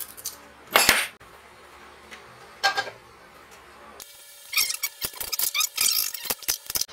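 Hand-tool work on metal fittings: metal scraping and clinking as a compressor pressure switch is fitted onto a brass fitting on a steel tank. One strong scrape comes about a second in and a sharper clink near three seconds, then a quick run of clinks and taps from a spanner over the last three seconds.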